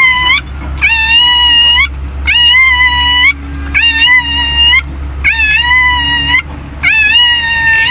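A pet animal crying out over and over: about five long, high-pitched cries, each rising and then holding steady, roughly a second and a half apart, over a low steady hum.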